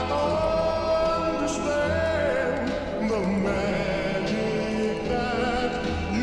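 Background music: a distorted, creepy rework of an old vocal pop song, with singing voices holding long, wavering notes over a low bass.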